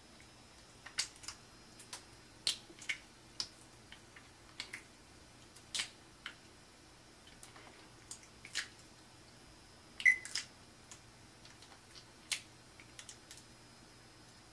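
Wet kissing and lip-smacking against mirror glass: irregular short smacks and clicks, the loudest about ten seconds in.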